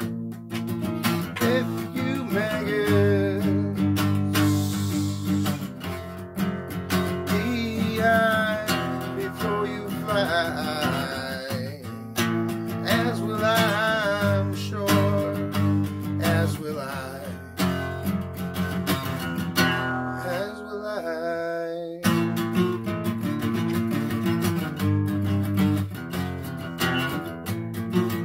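Acoustic guitar strummed and picked in a steady accompaniment, with a man's voice singing over it for a stretch in the first half.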